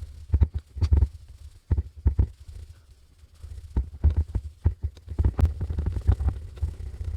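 A headlight restoration wipe is scrubbed firmly back and forth over a yellowed plastic headlight lens to remove the oxidation. It sounds as an uneven run of low thumps and rubbing strokes, with a short pause about halfway through.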